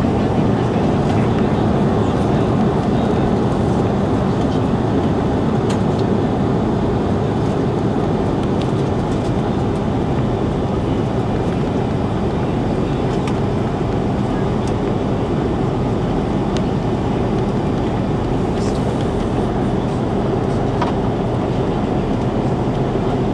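Steady cabin noise of an Airbus A330-300 climbing out after takeoff: its Rolls-Royce Trent 700 engines and the rush of air, heard inside the cabin at a window seat over the wing. A few faint clicks sound over it.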